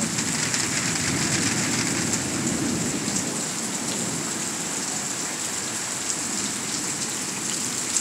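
Steady heavy thunderstorm rain falling on the ground and pavement, with a low rumble of thunder in the first few seconds.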